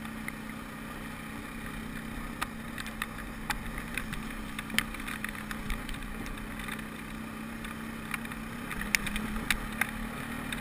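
ATV engine running at a steady pitch, heard from on board while riding a gravel track, with scattered sharp clicks and knocks. The engine pitch rises slightly about eight seconds in.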